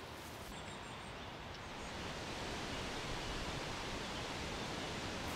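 Steady rushing outdoor background noise, growing a little louder about two seconds in, with a few faint high chirps about half a second in.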